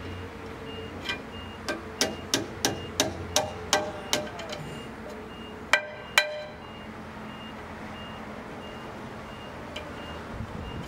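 Hammer blows on the steel of a large centrifugal compressor, ringing metallically. About nine strikes come at roughly three a second, then two harder blows about half a second apart.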